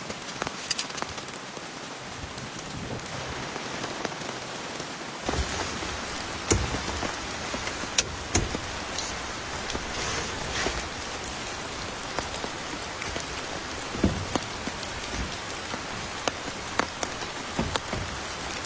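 Steady patter of precipitation on a surface, with scattered sharper drop taps; a deeper low rumble joins about five seconds in.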